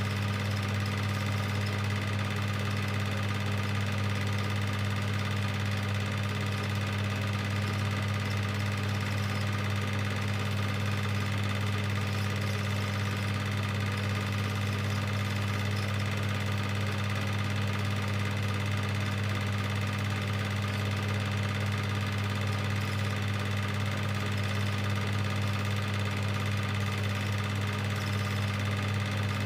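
Cine film projector running with a steady, unchanging hum.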